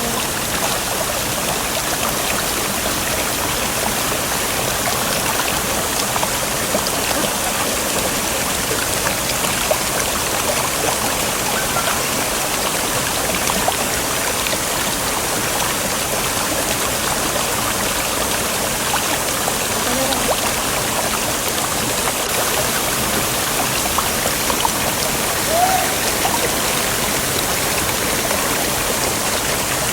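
Water of a waterfall stream rushing, a steady even rush.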